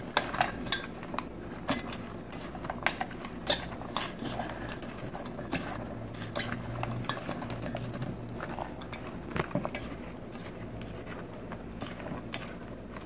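A plastic spatula stirring halved baby potatoes and chopped vegetables in a stainless steel bowl, with irregular light knocks and scrapes against the bowl's metal side.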